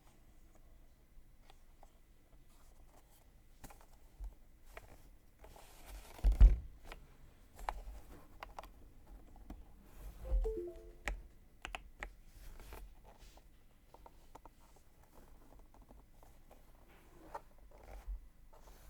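Scattered light clicks and knocks with no steady typing rhythm, a heavy thump about six seconds in, and another thump joined by a short run of a few soft tones about ten seconds in.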